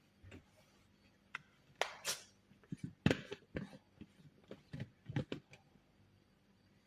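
Kitchen utensils and containers being handled: a string of sharp knocks and clatters with a couple of short scraping rustles, busiest in the middle of the stretch.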